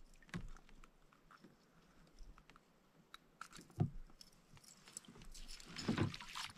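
Faint scattered clicks and knocks, with one louder knock about four seconds in and a quick cluster of them near the end.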